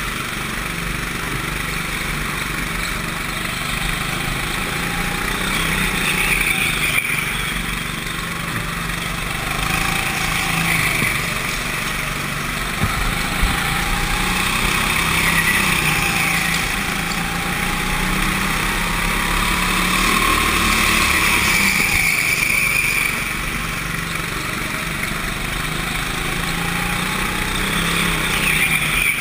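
Small go-kart engine running under throttle, its pitch rising and falling over a few seconds at a time as the kart speeds up and slows through corners.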